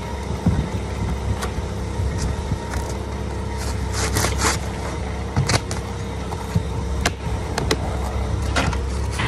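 Roofing work on asphalt shingles: scattered sharp clicks and knocks from shingles being handled and fixed, with a small cluster a few seconds in, over a steady low rumble.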